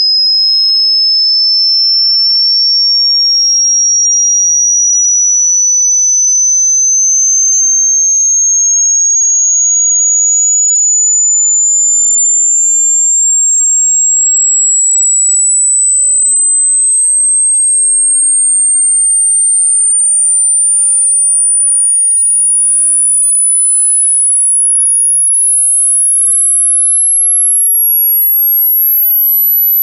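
Electronic sine-wave test tone of a hearing-test frequency sweep: one thin, high, pure tone climbing slowly and steadily in pitch in small steps, rising higher still toward the range where many adult listeners stop hearing it.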